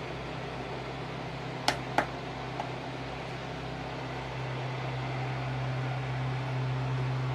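Small cordless circulator desk fan running with a steady whir and motor hum. Two sharp clicks come about two seconds in, and from about halfway through the hum grows louder as the fan speeds up.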